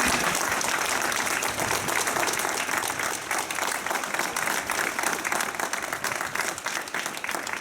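Outdoor crowd of several hundred people applauding steadily, dense clapping that eases a little near the end.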